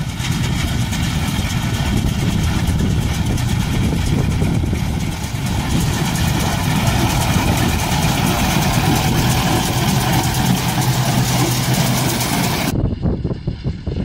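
Tractor engine running steadily, with an abrupt change to a thinner sound near the end.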